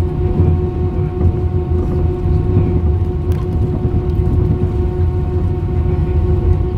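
Cabin noise of an Airbus A320-232 over the wing as it rolls slowly on the ground: the IAE V2500 engines run at low power, giving a steady low rumble with a steady hum on top.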